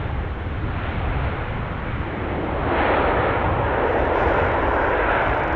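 Jet engines of a Boeing 787-9 Dreamliner during its landing roll: a broad rushing engine noise that swells louder about three seconds in and stays loud.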